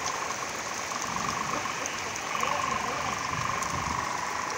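Heavy rain falling steadily, with a continuous buzzing tone running under it.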